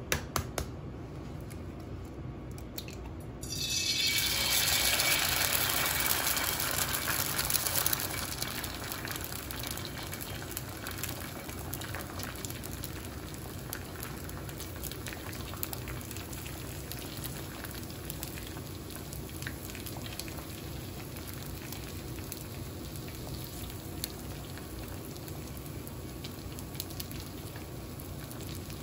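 A few light clicks, then a loud sizzle breaking out about four seconds in as something goes into a hot oiled cast iron skillet. It eases after a few seconds into steady frying with small crackles.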